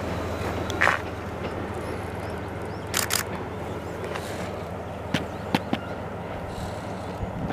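DF200 diesel-electric locomotive running with a steady low drone as it approaches slowly, heard from a distance. A few sharp clicks break through: one about a second in, a quick pair around three seconds, and three more around five seconds.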